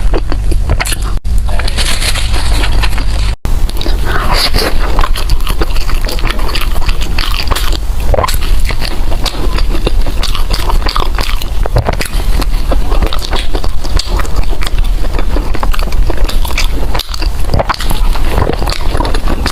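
A person biting and chewing food close to the microphone: a loud, dense run of mouth clicks and crackles.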